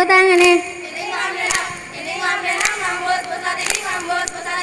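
Group of girls chanting a Saman dance song in unison: a long held note with a wavering pitch ends about half a second in, then softer singing continues, punctuated by sharp hand slaps about once a second.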